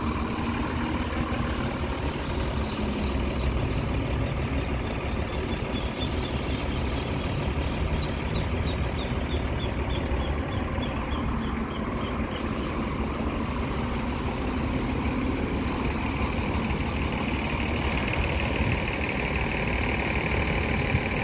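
Steady city street traffic: car and truck engines running and passing. A faint run of quick high chirps sounds through the middle.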